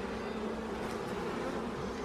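Honeybees buzzing in a steady hum around a hive opened for inspection, the colony stirred up by the frames being pulled.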